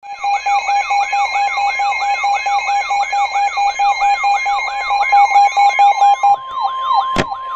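Electronic emergency alert tones on a broadcast: a siren-like whoop falling in pitch about three times a second, layered over a fast beeping tone. About six seconds in, a steady high alarm tone begins under the whoops. A sharp click comes near the end.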